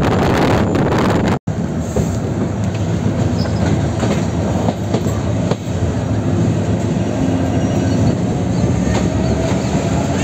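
Passenger train heard from an open window on board: wind and a steady rumble, then, after a sudden cut about a second and a half in, the train rolling slowly into a station with wheel clatter and a faint squeal near the end.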